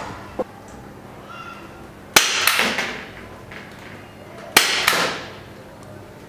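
Spring-loaded plastic toy flare gun firing water crystal beads: two sharp clacks about two and a half seconds apart, each with a short rattling tail, after a light click near the start.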